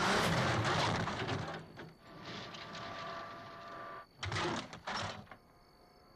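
Film sound of a car crash: a loud crash as the airborne sedan hits the ground, then a scraping slide, then a few short metal clanks from parts falling away. It goes nearly quiet near the end.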